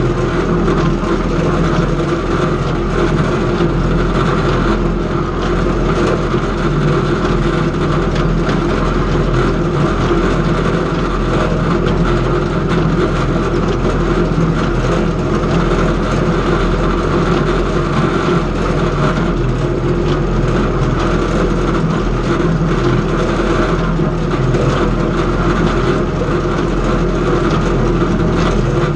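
Tractor and antique hay baler running steadily while baling hay, a loud, even machine sound with no pause.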